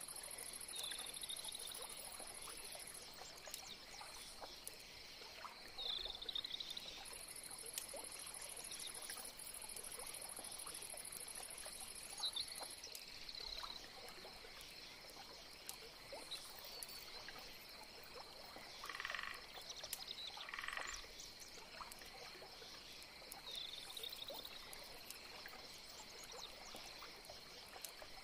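Faint, short chirping calls repeat every few seconds over a steady high hiss. Two brief buzzy calls come about two-thirds of the way through.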